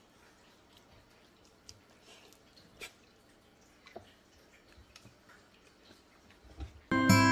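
Faint, scattered small clicks and wet mouth sounds from a husky having its chin scratched. About seven seconds in, loud acoustic guitar music starts suddenly.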